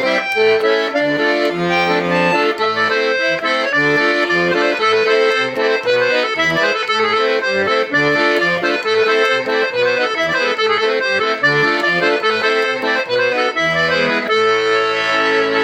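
Hohner Concerto II piano accordion playing a tune: a treble melody over an evenly pulsing bass-and-chord accompaniment, settling into a held chord near the end.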